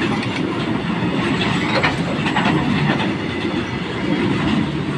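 Freight train of open-top steel box wagons rolling past close by: a steady rumble of wheels on rail, with a few sharp clacks over rail joints in the middle.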